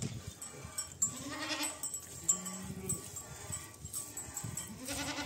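Goats bleating, several calls in turn, with a sharp tap about two seconds in.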